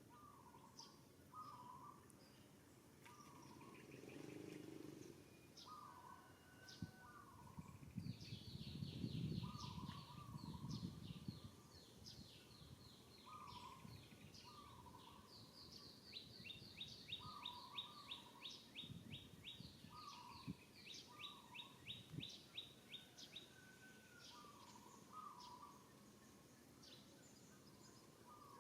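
Faint outdoor birdsong: a short two-note call repeating every second or two, with fast high trills in the middle stretch. A few seconds of low rumbling noise come about a third of the way through.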